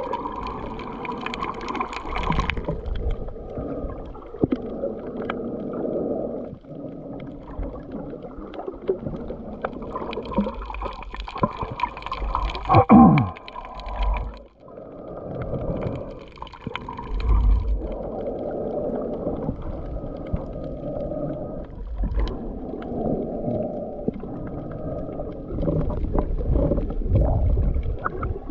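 Muffled underwater water noise picked up by a camera below the surface while snorkelling: a steady rushing and gurgling that swells and fades. About halfway through there is one short tone that falls steeply.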